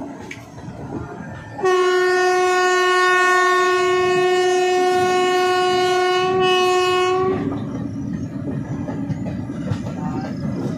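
Train horn sounding one long steady blast of about six seconds, starting about a second and a half in, over the running noise of the moving train, which carries on alone after the horn stops.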